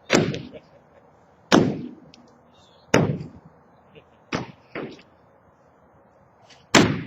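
Heavy blows striking the silo during demolition, about one every one and a half seconds, each ringing out briefly; one blow is doubled by a quicker, weaker second strike.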